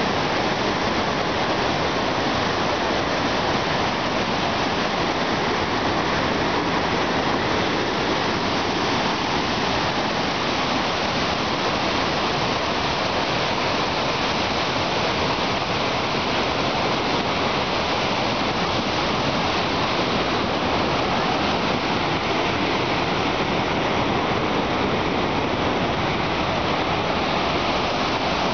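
Victoria Falls' huge curtain of water plunging into the gorge: a loud, steady rushing that does not let up.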